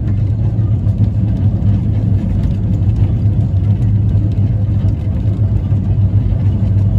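W-class tram running along street track: a steady low hum with a rumble beneath it, heard from the driver's cab.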